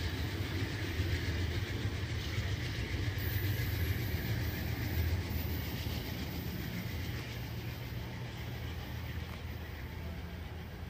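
Amtrak passenger train pulling away along the rails: a steady low rumble of wheels on track that slowly fades as it recedes.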